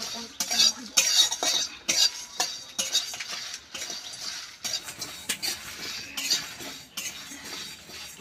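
A flat metal spatula scraping and clinking against an aluminium pan in quick repeated strokes, about two a second, while stirring whole cumin, coriander and fennel seeds and dried red chillies as they dry-roast, with the seeds rattling against the metal.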